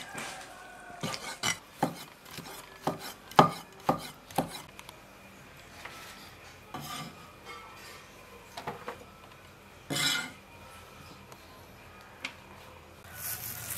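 Meat cleaver chopping pork intestine on a wooden chopping board: a run of sharp knocks over the first four seconds or so. After that come fewer knocks and scraping as the blade pushes the cut pieces along a tray.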